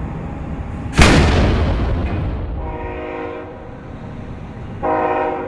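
A 29.5R25 earthmover tire on a three-piece steel wheel, inflated to 150 psi, bursts inside a steel inflation cage: one loud blast about a second in, then the rush of escaping air fades away. A horn-like tone sounds briefly twice after the blast.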